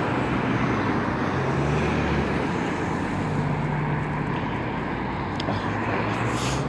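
Road traffic: cars driving past, a steady rush of tyre and engine noise with a low engine hum underneath.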